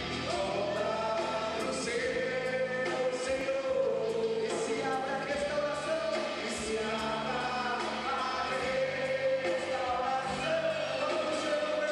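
Live Christian worship song with amplified band and many voices singing together in long held notes.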